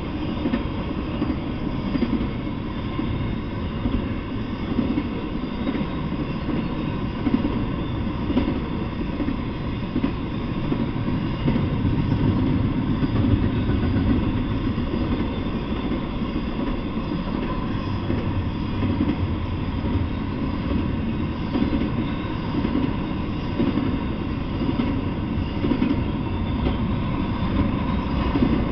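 Intermodal freight train cars rolling past, with double-stack container cars and trailer flatcars. They make a continuous, steady rumble of steel wheels on the rails.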